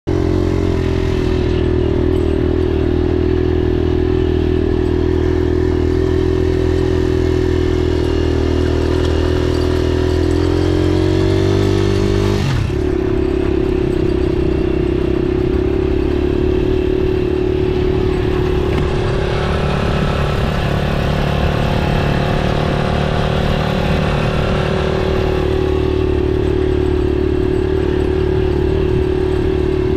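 Honda XR150 single-cylinder motorcycle engine running under way. Its pitch climbs slightly, drops suddenly about twelve seconds in, then holds steady.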